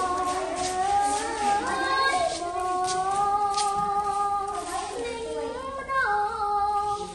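A young girl singing unaccompanied, holding long notes that bend and slide between pitches.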